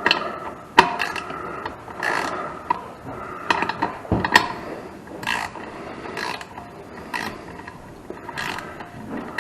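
Ratchet wrench clicking in short, irregular strokes as a nut on the toilet's mounting hardware is tightened, with a couple of sharper metal clicks.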